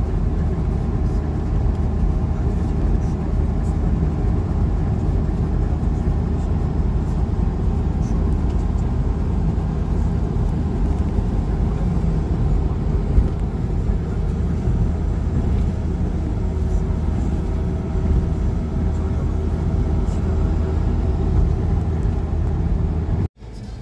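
Steady low road and engine rumble inside the cab of a Kia Bongo III Coach campervan cruising on a highway. The sound cuts out suddenly about a second before the end, then comes back quieter.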